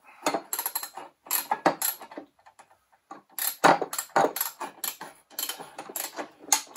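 Socket ratchet clicking in short runs as nuts are tightened on the through-bolts of a crankcase splitting plate, with a brief pause of about a second midway. The tightening slowly presses the engine case halves apart.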